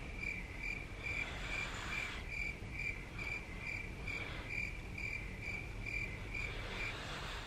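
Cricket chirping in a steady, even rhythm, about two and a half chirps a second, stopping shortly before the end.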